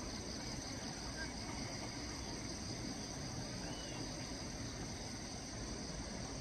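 Steady rural outdoor background with an even, continuous insect drone and a low rumble underneath.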